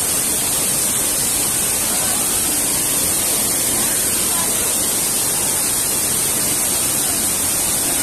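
Steady rush of a waterfall pouring over rocks into a pool, unchanging throughout, with faint voices of people under it.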